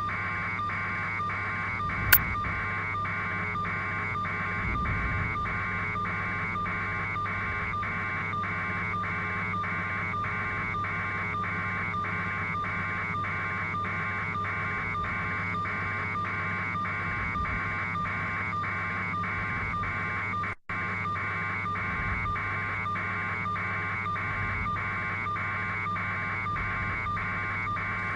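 Helicopter cabin noise picked up through the onboard microphone: a steady hum with a higher band that pulses evenly throughout. A sharp click about two seconds in, and the sound drops out for a moment about twenty seconds in.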